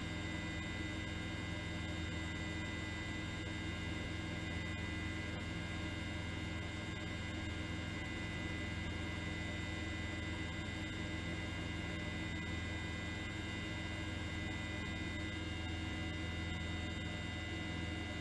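Steady electrical hum made up of several level tones stacked together, with a faint hiss and no change in level.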